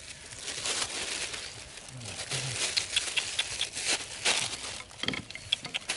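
Thin plastic bag crinkling as it is handled and twisted, in irregular crackles.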